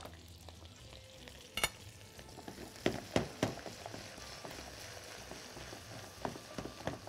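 Garlic frying gently in browned butter and oil in a pan, a soft steady sizzle, with a utensil stirring and a few light knocks and scrapes against the pan.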